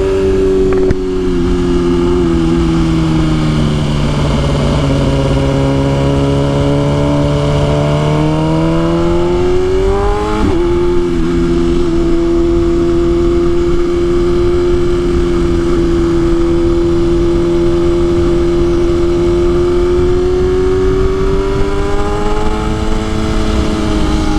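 BMW S1000RR inline-four engine pulling while riding: its note sags and then climbs, drops sharply with a quick upshift about ten seconds in, holds steady, and climbs again near the end.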